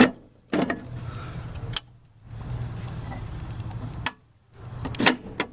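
Metal clunks and clicks as a truck camper's fold-out entry steps are handled and set down: a sharp knock at the start, another about half a second in, and a cluster of clicks near the end, over a low steady hum.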